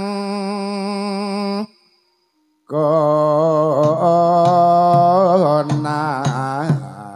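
A solo voice sings long held notes that waver and bend in pitch, in the free, unmetered style of a Javanese gamelan song; the sound cuts to dead silence for about a second roughly two seconds in, then the singing resumes. Sharp struck gamelan notes come in near the end.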